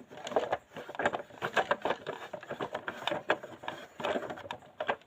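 Small toy pieces clicking and knocking together as they are handled and dropped into the toy lorry's little bins, with many short, irregular clicks.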